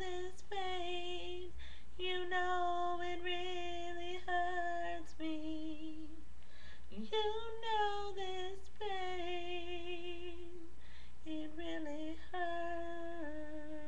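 A woman singing a cappella, holding long notes with a slight vibrato in phrases separated by short breaths.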